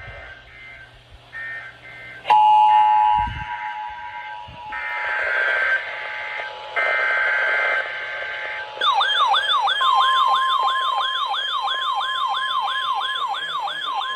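Emergency Alert System tones: short buzzing data bursts, a brief two-tone attention signal about two seconds in, more data bursts, then from about nine seconds a rapidly repeating rising whoop tone over a steady tone, the alert sound that opens a new warning.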